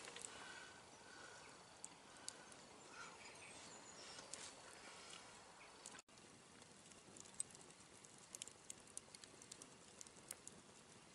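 Faint scraping and ticking of a knife whittling a piece of wood, then, after a cut, a campfire crackling with frequent sharp pops.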